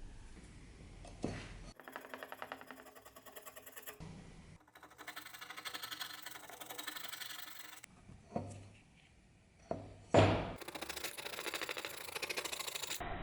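Rhythmic hand scrubbing or scraping strokes on the rusty steel parts of an old axe during rust removal, in several short cut-together runs. Scattered knocks of metal parts being handled come in between, with the loudest thunk about ten seconds in.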